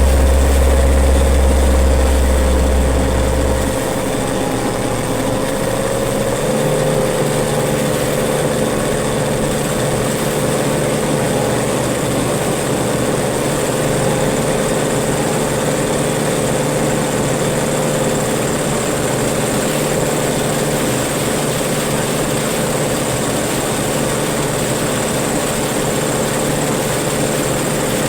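Maxxi Bimo 102L rice combine harvester running steadily at work, its engine and threshing machinery giving a constant hum with a high whine above it. A deep low drone in the first few seconds falls away about four seconds in, and the machine's tone shifts slightly a couple of seconds later.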